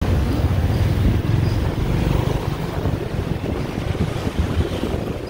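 Wind buffeting the phone's microphone on a moving motor scooter, with the low rumble of the ride and street traffic underneath; the buffeting is heaviest in the first couple of seconds, then eases a little.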